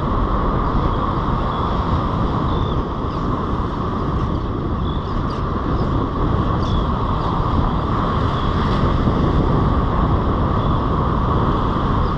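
Wind buffeting the camera's microphone over the steady wash of breaking surf on a beach.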